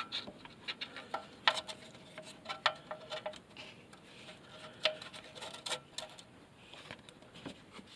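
Scattered light clicks and taps, a few with a brief ring, from handling as the bleed bottle and its hose are moved up above the clutch slave cylinder's bleeder valve.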